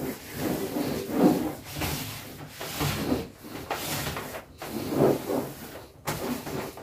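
Soapy sponge scrubbing a white plastic chair, in repeated rubbing strokes that swell and fade every second or two.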